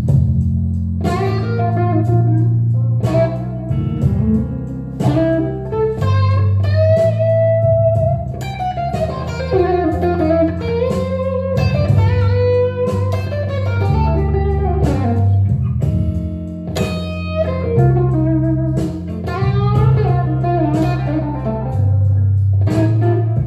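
Telecaster-style electric guitar playing an improvised blues lead, single-note phrases with string bends, over held low bass notes that change every second or two.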